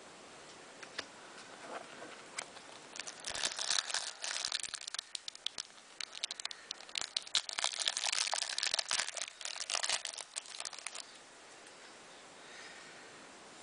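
Foil wrapper of a Panini Adrenalyn XL trading-card pack crinkling as it is handled and torn open. The crackling comes in two dense bouts, starting about three seconds in and stopping near eleven seconds.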